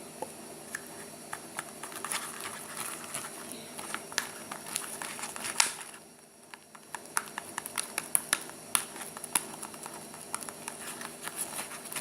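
Slime mixture being stirred in its container with a mixing tool, making irregular sticky clicks and taps, with a brief lull about halfway through. The contact lens solution is activating it, and it is thickening into slime.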